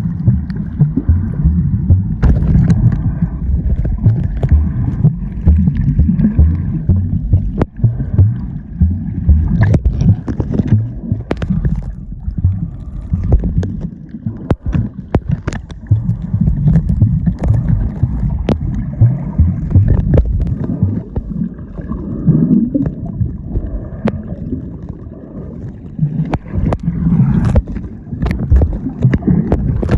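Muffled, loud water rumble and gurgling picked up by a phone held underwater, with many sharp clicks and knocks scattered throughout.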